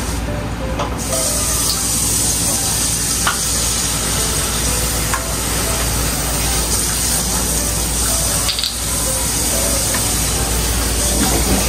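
A steady rushing hiss that switches on abruptly about a second in, over a low hum, with a few light clinks.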